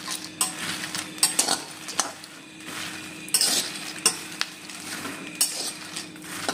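Peanuts in their shells being roasted in a metal kadhai and stirred with a spatula: repeated scraping sweeps, about one a second, with the shells rattling and clicking against the pan.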